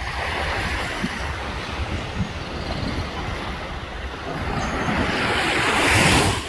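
Surf washing ashore with wind buffeting the microphone; the rush of water swells louder near the end, then drops off suddenly.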